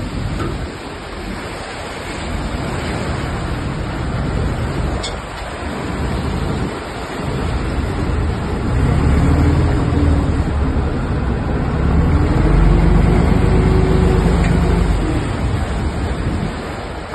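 Surf breaking and washing against a small fishing boat that is heeling over and taking on water, with wind buffeting the microphone and a low rumble that grows louder in the second half.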